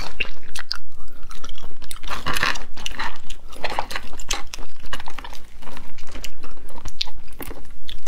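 Close-miked eating of boiled shellfish: chewing and mouth sounds mixed with sharp crackles and snaps as shells are cracked and peeled by hand.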